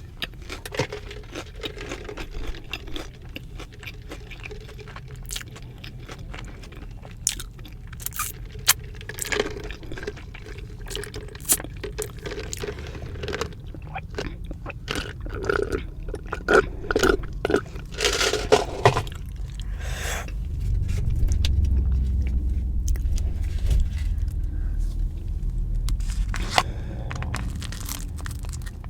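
Close-miked chewing and crunching of a crispy fried Korean cheese dog, with irregular crackles and mouth sounds. A low rumble comes in about two-thirds of the way through and fades near the end.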